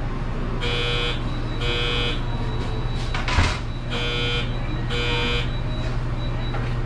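Electronic timer alarm of a bakery deck oven beeping, two short beeps about a second apart, the pair repeating every three seconds or so, over a steady low hum of the oven. About halfway through comes a brief clatter with a thump.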